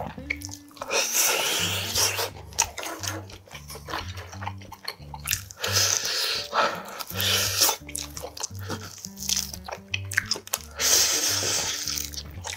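Close-miked eating sounds: biting and tearing meat off grilled pork back ribs and chewing, in three loud spells a second or two long. Background music with a steady low beat plays underneath.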